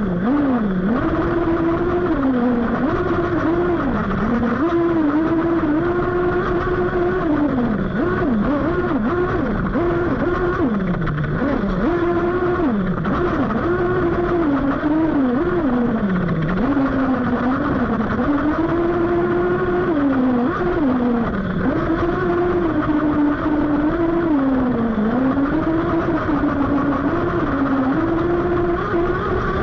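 1/8-scale Kyosho Inferno Neo 3.0 buggy's nitro engine, heard up close, revving up and falling back over and over as the throttle is worked while it drives through grass. The engine is running very rich.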